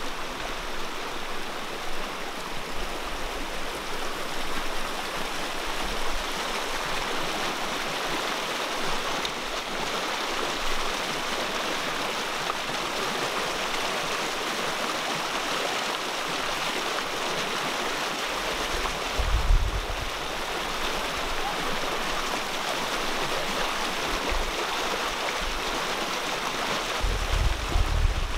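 Shallow muddy floodwater running steadily over gravel and debris. A brief low thud about two-thirds of the way through, and more low bumps near the end.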